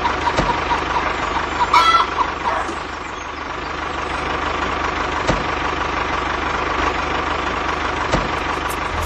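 Miniature DIY tractor's small motor running steadily with a continuous whine and a low hum, with a few sharp clicks. A chicken clucks briefly about two seconds in.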